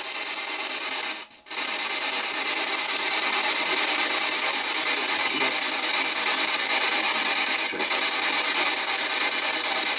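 PSB7 spirit box sweeping the FM band at its fastest speed in reverse, giving a steady hiss of radio static that cuts out briefly about a second in.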